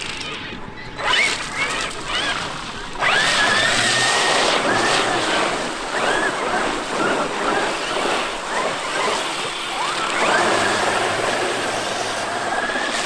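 Traxxas X-Maxx RC truck's brushless electric motor and drivetrain whining over a rushing noise as the truck is driven. The whine climbs sharply about three seconds in and again near ten seconds, then holds at a high pitch.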